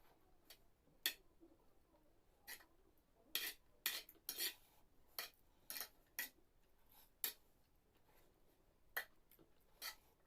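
Eating utensils clinking and scraping against dishes: a dozen or so short, sharp clinks at uneven intervals, most of them bunched together around the fourth second.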